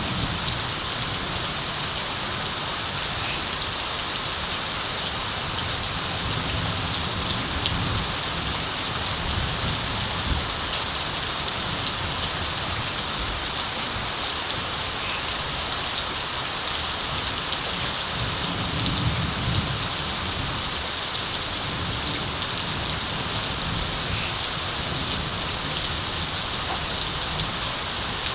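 Steady, heavy rain with a dense hiss and scattered drop ticks. Soft low rumbles of distant thunder swell near the start and again about two-thirds of the way through.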